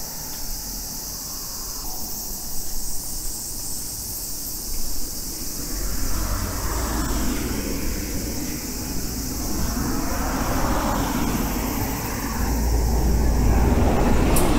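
Road traffic passing, then a bus driving past close by, its engine and tyre rumble growing and loudest near the end.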